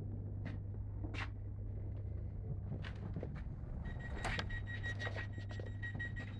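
Steady low electrical hum inside a stationary electric train, with a few light clicks. About four seconds in, a high-pitched repeated beeping starts: the door-closing warning.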